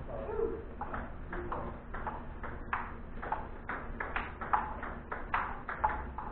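Celluloid-type table tennis balls clicking off paddles and tabletops in rallies, short sharp taps about three a second.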